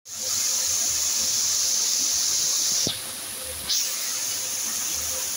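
Garden fountain spray jets hissing, a high, steady hiss of water spray that cuts out suddenly about three seconds in with a soft knock and starts again under a second later.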